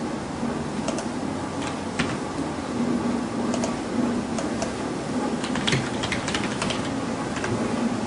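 Computer keyboard typing and mouse clicks, irregular sharp taps that bunch together about two-thirds of the way through, over a steady low hum.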